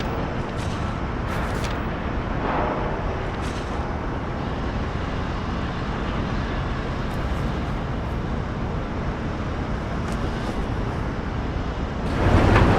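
Steady rushing ambient noise with a few faint clicks, swelling suddenly louder and deeper near the end.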